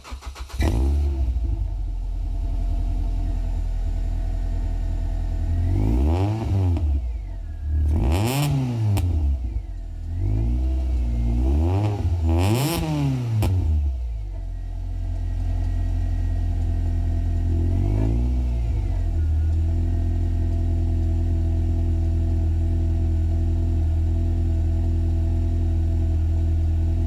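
Ford Fiesta Mk6 ST's 2.0-litre four-cylinder engine catching on a cold start after standing a week, with a fast cold idle. It is blipped about five times in quick succession from about a quarter of the way in, once more a little later, then left idling steadily.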